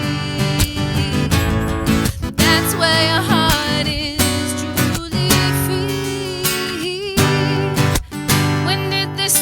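Acoustic guitar strummed steadily in an instrumental passage of a live song.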